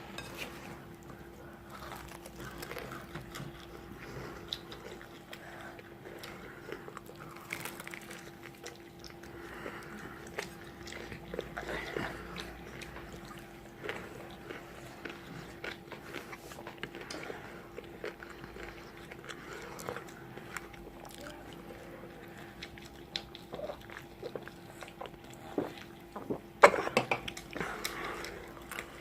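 Close-up eating sounds: a person biting into and chewing crispy fried food, with irregular crunches, crackles and mouth sounds. A louder run of crunches comes near the end.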